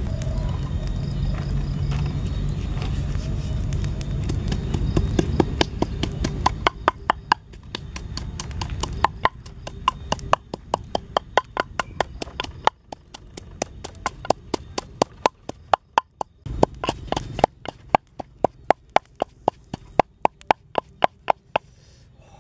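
Wooden pestle pounding in a clay mortar: sharp, regular knocks at about three a second, with a few short pauses, starting about four seconds in after a low rumble.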